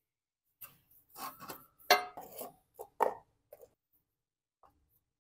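A run of short knocks and clatters as a cover is handled and fitted over the carburetor side of a small engine on a workbench, the sharpest knock about two seconds in.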